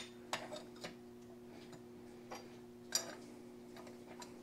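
Light clicks and clinks of short stainless steel tube pieces being handled and slipped into a stainless bellows flex pipe on a steel workbench, with a sharper ringing metal clink about three seconds in. A faint steady hum runs underneath.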